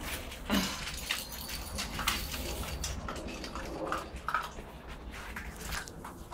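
Seven-week-old chocolate Labrador puppies eating kibble together from one pan: irregular chewing, clicking and clinking, with a sharper knock about half a second in.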